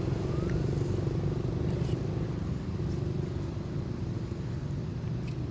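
An engine running steadily: a low, even drone, with a few faint short chirps above it.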